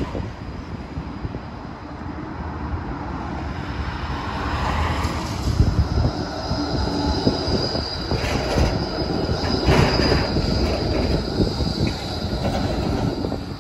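Melbourne E-class low-floor tram passing close by on a curve, its wheels rumbling on the rails, with a steady high-pitched wheel squeal through the middle of the pass. A run of sharp clicks comes from the wheels crossing rail joints as it goes by.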